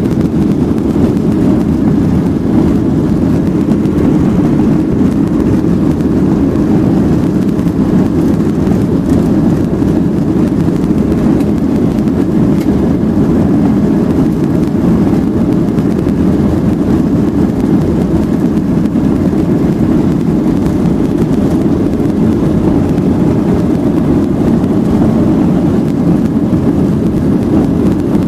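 Jet airliner's engines at takeoff thrust, heard from inside the passenger cabin during the takeoff roll: a loud, steady, deep roar.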